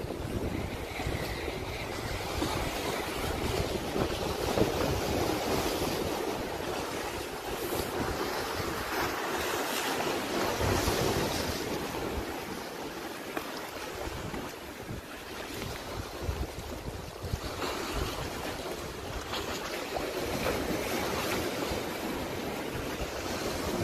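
Wind buffeting the microphone over the rushing of sea waves, a steady noise that swells and eases every few seconds.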